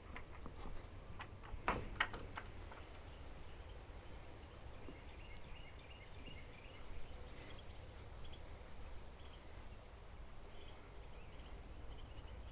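Faint outdoor ambience: small birds chirping now and then over a steady low rumble of wind or handling noise. A few sharp clicks about two seconds in.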